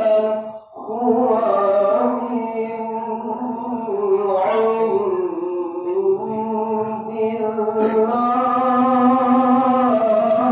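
Solo voice reciting the Quran in the melodic tilawah style, drawing out long held notes with ornamented bends in pitch. There is a brief pause for breath just under a second in.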